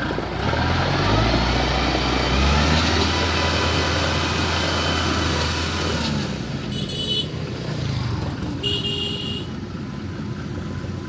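Kubota DC-105X combine harvester's diesel engine running under load, rising in pitch over the first couple of seconds, holding steady, then easing off about six seconds in. Two short high beeps sound about two seconds apart in the second half.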